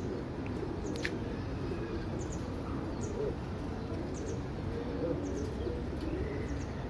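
Domestic pigeons cooing in a wire cage, with soft low coos coming on and off, and a few faint high chirps.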